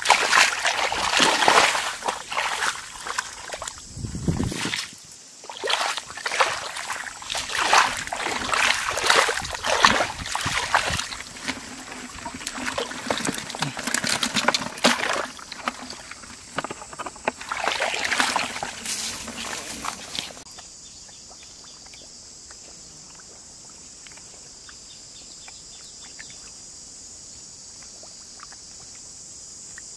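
Shallow muddy water splashing and sloshing as bare feet churn the mud, in irregular bursts for about twenty seconds. Then the splashing stops suddenly, leaving a steady high-pitched insect drone.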